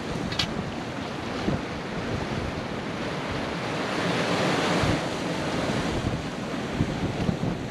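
Sea waves washing against a rocky shore, with wind buffeting the microphone; a wash swells louder about four seconds in.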